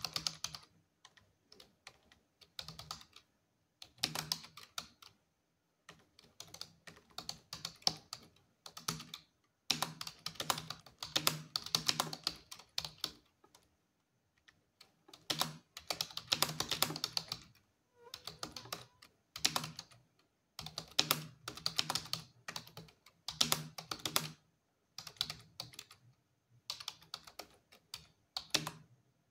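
Computer keyboard being typed on quickly during a timed typing test. Rapid runs of key clicks come in bursts of a second or more, with short pauses between them.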